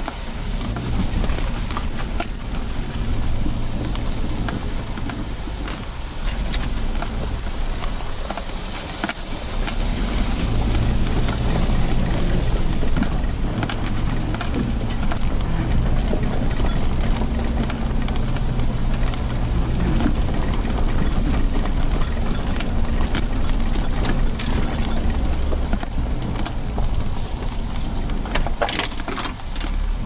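Suzuki Jimny Sierra driving slowly on a gravel forest road: its engine runs with shifting pitch while the tyres crackle over loose stones and dirt. A high chirping repeats in short groups throughout.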